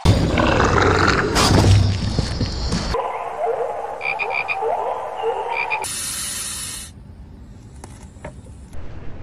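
A loud rushing noise for about three seconds, then frogs croaking: short rising croaks mixed with a few quick high-pitched pips. A second of hiss follows, then a quieter stretch with a few faint clicks.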